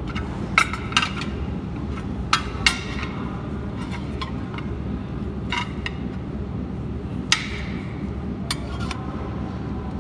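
Steady low machine hum with about eight sharp metallic clinks spread through, as metal parts are handled.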